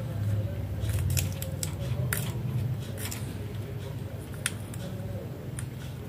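Indian ringneck parakeet biting and chewing a yellow chili pepper held in its foot: irregular crisp crunching clicks of its beak, over a low steady hum.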